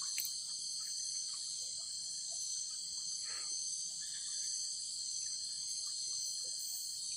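Night insect chorus: crickets chirring steadily in several overlapping high-pitched bands.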